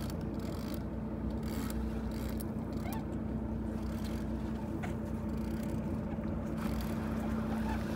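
Fishing boat's engine running steadily, a constant low hum, with a few faint clicks over it.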